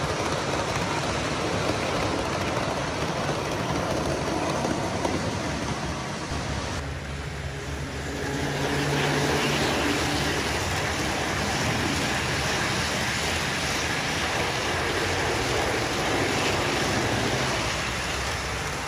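Model trains running past on the layout's track: a steady rumble of wheels on rail with electric motor hum. The sound changes about seven seconds in, when a second train of HO scale diesel locomotives and freight cars takes over.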